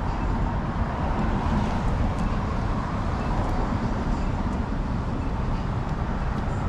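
Steady low rumble of wind on the microphone and road noise from a moving bicycle.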